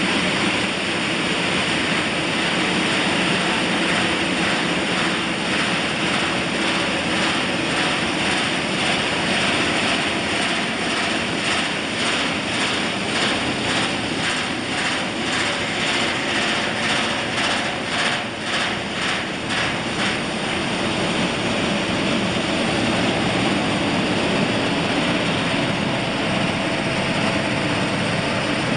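Pumpkin seed hulling and shelling machine line running: a loud, steady mechanical roar with a thin high whine. For several seconds around the middle a fast, even pulsing rides on top.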